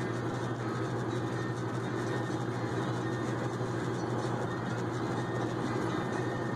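Steady road and engine noise of a vehicle driving along a highway, heard from inside the cabin: a constant low hum with tyre noise that does not change.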